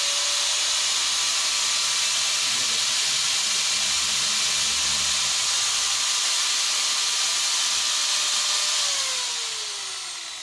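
Rebuilt angle grinder running unloaded with no disc fitted: a steady high whine over a loud hiss, then switched off about nine seconds in and winding down with falling pitch. The run shows the motor no longer shorting after its armature and bearings were replaced.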